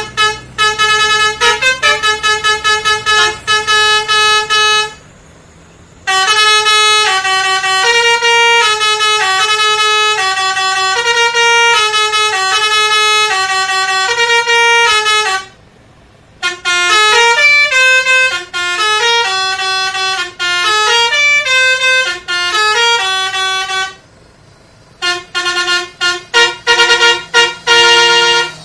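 Telolet multi-tone bus horn playing melodies of stepped notes, with rapid staccato toots at the start and again near the end, broken by three short pauses. A faint engine hum sits under the first few seconds.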